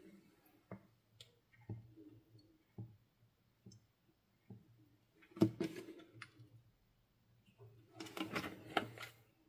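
Thick white school glue pouring from a plastic bottle into a plastic bowl: scattered soft clicks and plops, a louder one about five seconds in and a busier stretch of them near the end.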